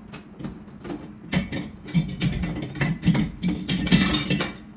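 Metal clinks, knocks and rattles as the canopy and mounting-bracket hardware of a ceiling fan are handled at the ceiling. They come irregularly and grow busier and louder after about a second.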